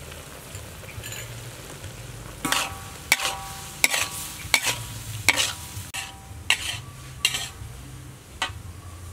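Metal spatula stirring chicken gizzards in a hot wok over a steady sizzle of frying. From about two and a half seconds in it clanks and scrapes against the wok roughly once every three-quarters of a second, some strokes ringing briefly.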